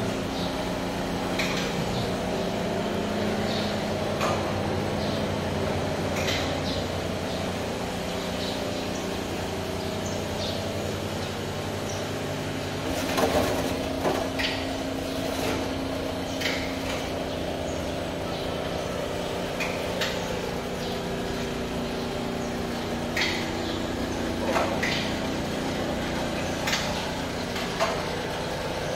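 Stainless-steel rice-cracker and fish-cake fryer running with a steady motor hum and scattered metallic clicks and knocks. A cluster of louder clatter comes about 13 seconds in, as the perforated basket tips the fried rice crackers out.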